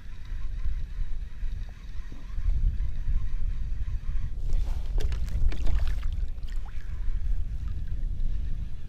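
Wind buffeting the microphone, a loud low rumble that gets stronger about two seconds in, with a flurry of short clicks and rustles around the middle.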